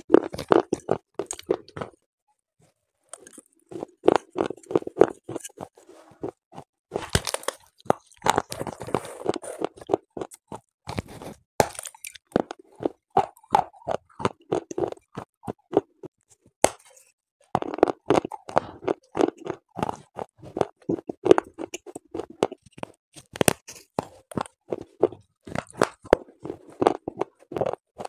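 Fired terracotta clay from a broken clay pot being bitten and chewed close to the microphone: runs of rapid gritty crunches, broken by two short pauses.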